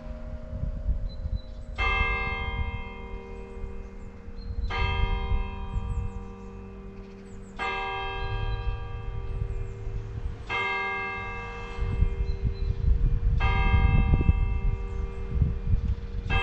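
A church bell tolling, one stroke about every three seconds, each stroke ringing on until the next, over a low, uneven rumble.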